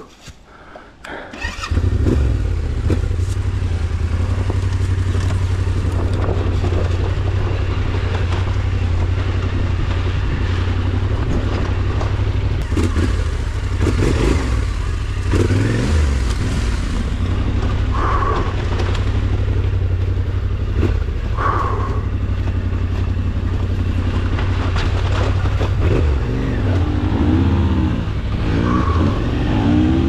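Yamaha Ténéré 700's parallel-twin engine running steadily at low revs on a trail. It comes in abruptly about two seconds in, and the revs rise and fall a few times near the end.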